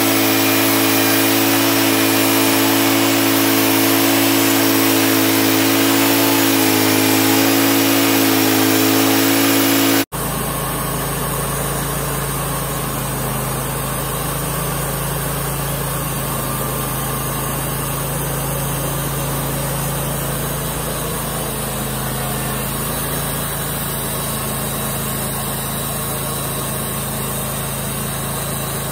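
Portable band sawmill running as its blade cuts through a walnut log: a steady engine drone with a hiss over it. About ten seconds in the sound cuts abruptly to a quieter, lower, steady engine hum as the cut goes on.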